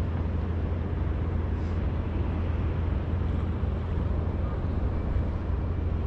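Steady wind buffeting the microphone, a constant low rumble over the rush of a rough sea.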